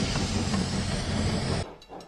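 A snowplow train pushing through deep snow: a loud, steady rushing rumble that cuts off abruptly near the end.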